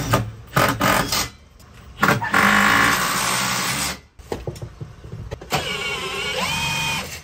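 Cordless drill driving fasteners into a wall bracket: a few knocks, then a steady run of about two seconds that stops suddenly, then a second run whose pitch dips and rises.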